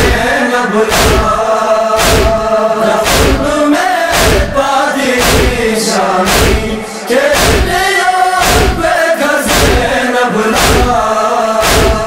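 Men's voices chanting a Balti noha (Shia lament) together, with a heavy thump keeping an even beat about once a second, the chest-beating (matam) rhythm of the lament.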